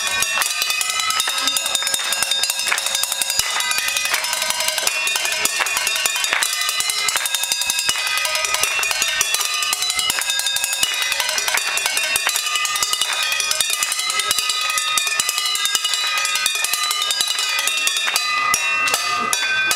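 Rows of stainless steel pots struck fast with drumsticks, a dense stream of metallic clanging strikes in a continuous rhythm, each pot ringing at its own pitch.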